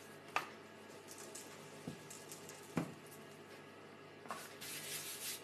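Faint handling of gingerbread dough and a wooden rolling pin on a floured countertop: a few light knocks, then a soft rubbing near the end.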